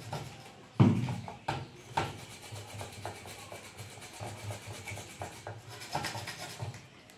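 Toothbrush bristles scrubbing the solder side of a printed circuit board in short, repeated strokes, with a few sharp knocks in the first two seconds, the loudest just under a second in.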